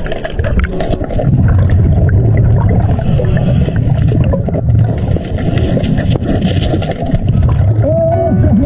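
Loud, churning underwater rumble of moving water with scattered clicks. Near the end come a few wavering calls that rise and fall in pitch.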